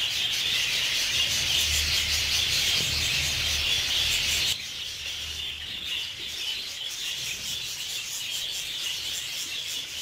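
Dense, steady twittering chatter of a flock of budgerigars, many birds at once blending into a hiss-like warble. It drops suddenly to a quieter level about halfway through.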